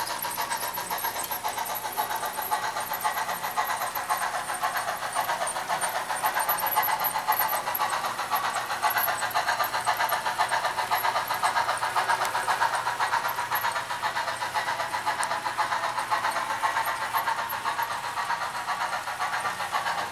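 HO-scale model steam locomotive and its train running along the track: a steady mechanical running noise with fine rapid ticking.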